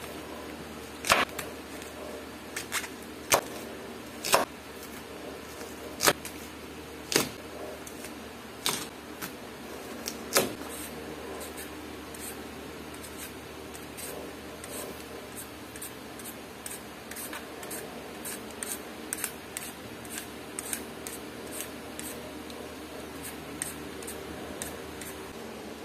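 Cleaver chopping through corn cobs onto a wooden cutting board, a sharp knock every second or so for the first ten seconds. From about twelve seconds in, a peeler scraping the skin off a sweet potato in quick, light strokes.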